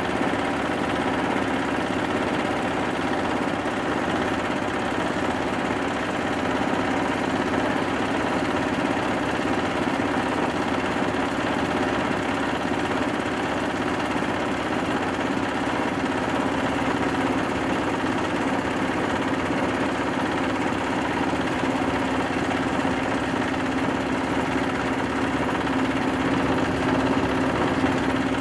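Rice husk and bran grinding mill running steadily under load as it grinds husks into fine bran, a constant drone with a strong low hum that stays even throughout.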